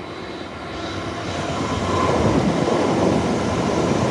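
A passenger train approaching and running past close below. Its rumble swells over the first two seconds and then stays loud.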